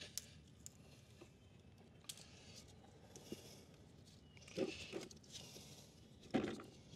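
Faint scattered clicks and rubbing scuffs of a rubber motorcycle coolant hose being worked loose from its fitting by hand, with two louder scrapes a little past halfway and just before the end.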